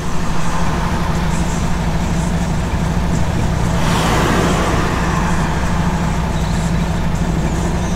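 MAN TGX semi-truck's diesel engine idling steadily, heard from inside the cab, with a brief rush of noise about halfway through.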